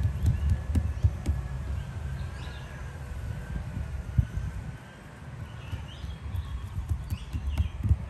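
Fingertips pressing and patting a round of kulcha dough flat on a tabletop: a run of soft, uneven low taps, heaviest in the first second or two, then lighter. Birds chirp now and then.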